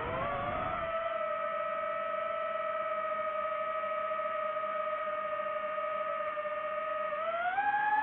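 DJI FPV drone's motors and propellers whining with a steady pitch. The pitch rises out of a dip in the first second, holds level, then climbs again near the end as the throttle is pushed up.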